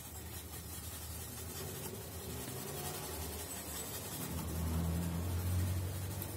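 A paintbrush mixing paint on a styrofoam tray, a soft rubbing and scratching of bristles. A low rumble swells between about four and six seconds in.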